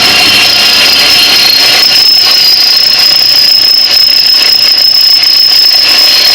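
Drill bit cutting through the race car's metal floor, giving a loud, steady high-pitched squeal.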